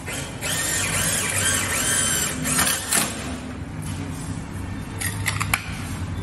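Hand-tool work on a steel door frame: a wavering squeal over metal scraping for about two seconds, a sharp knock about three seconds in, and a few quick taps near the end, over a low steady hum.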